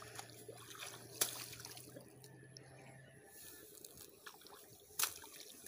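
Faint splashing and trickling of muddy water in a flooded rice paddy, with two sharper splashes, one about a second in and one near the end.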